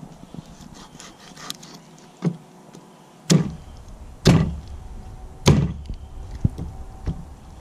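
Cleaver chopping a raw chicken carcass on a wooden cutting board: four sharp chops about a second apart, the later two loudest, followed by a couple of lighter knife taps.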